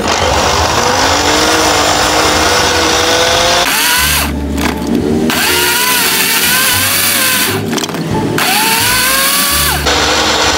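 Electric countertop blender motor running loud on watermelon chunks, its whine shifting in pitch as it labours. It cuts out and restarts twice, about four seconds in and again near eight seconds: the blender is struggling to blend the watermelon.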